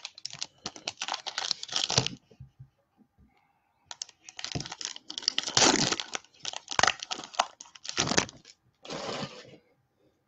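Topps Chrome baseball cards being handled and flipped through by hand: two stretches of rapid, crisp clicks and rustles, with a short smooth swish near the end.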